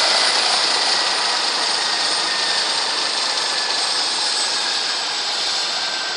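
Helicopter running on the ground with its rotor turning: a steady rushing noise with a faint high turbine whine, slowly getting quieter.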